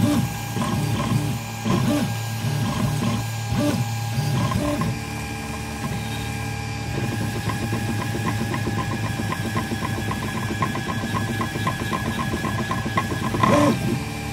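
Geeetech i3 FDM 3D printer printing: its stepper motors whine and buzz as the print head makes short, quick moves, over a steady fan hum. About five seconds in, the moves settle into steadier whining tones with rapid regular ticks, and there is one louder knock near the end.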